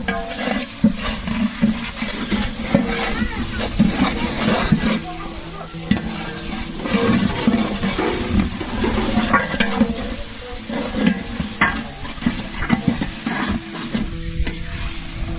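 Food frying and sizzling in a pot while being stirred, the spoon scraping and knocking against the pan in quick, irregular strokes.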